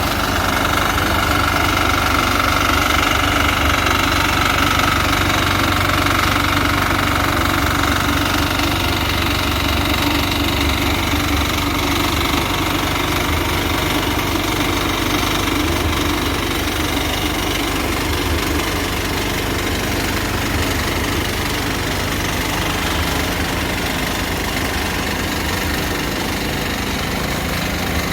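An engine of site machinery at a concrete pour running steadily with a fast, even low pulse, slightly louder in the first several seconds and then easing a little.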